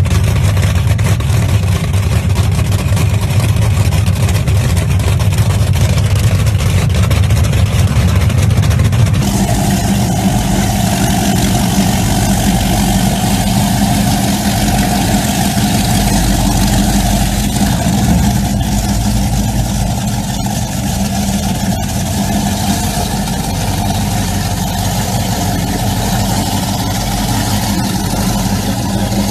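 Powerboat inboard engines idling, low and steady. About nine seconds in, a hard cut brings in a long offshore powerboat's engines running at low speed as it manoeuvres off a dock, throwing up wake.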